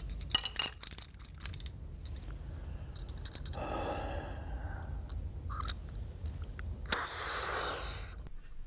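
Handling of an Autohaler, a breath-activated inhaler: a quick run of rattles and clicks as it is shaken and readied, and a breath out. About seven seconds in comes a sharp click, the dose firing, followed by a deep, strong breath in through the mouthpiece.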